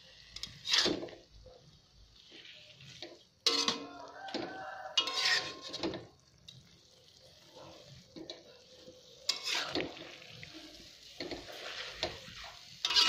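Metal spatula scraping and clinking against a metal wok as a simmering spinach stir-fry is stirred, in irregular strokes a few seconds apart with brief metallic ringing, and a faint sizzle of the boiling liquid between strokes.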